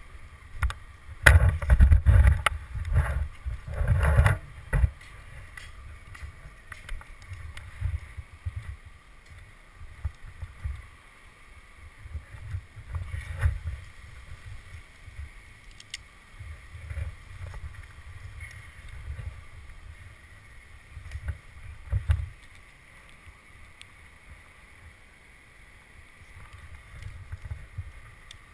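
Climber working up a poplar trunk on climbing spikes: dull thumps and scuffs of spikes, rope and sleeve against the bark, coming in irregular bursts as he moves, loudest in the first few seconds.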